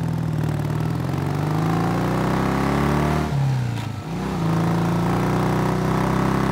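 Motorcycle engine pulling away, its pitch rising for about three seconds, dropping off briefly a little past three seconds in, then picking up again and running steadily.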